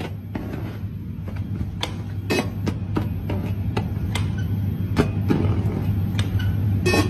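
Laser engraving machine working on denim jeans: a steady low hum with irregular sharp clicks and crackles over it.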